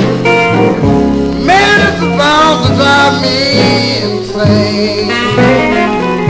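1958 blues record playing: an instrumental passage with a lead line of bending, sliding guitar notes over the band's steady bass.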